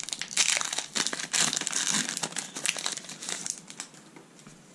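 Foil Pokémon booster pack wrapper being torn open and crinkled by hand, a rapid run of crackling rustles that dies down near the end.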